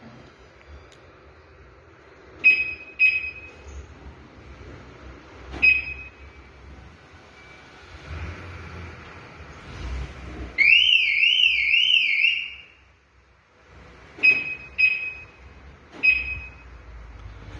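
Car alarm siren sounding on remote commands: two short high chirps, a single chirp, then about two seconds of loud warbling alarm tone, then two more chirps and a single one. It is the Volkswagen Tiguan's alarm siren answering a retrofitted Xhorse Kessy keyless remote.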